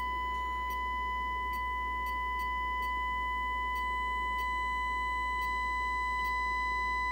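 A steady 1 kHz test tone, with a string of overtones above it, sounds through the speaker of the Elenco AM/FM-108CK kit's IC audio amplifier at full volume as the sine-wave input is turned up toward clipping. Faint ticks come about twice a second, over a low hum.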